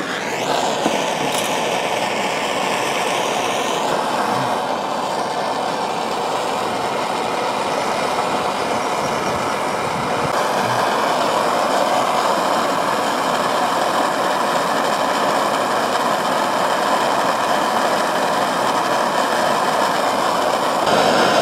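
Steady rushing of a gas flame heating a steel pot of water toward the boil. It comes on at the start with a brief rising hiss.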